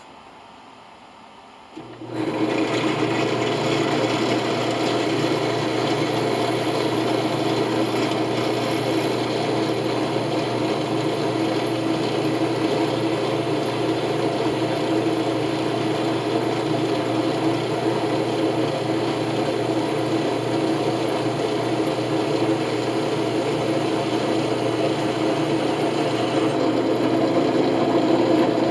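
Electric drill starting about two seconds in and running steadily, boring holes in a brass skull coin, then shutting off at the very end.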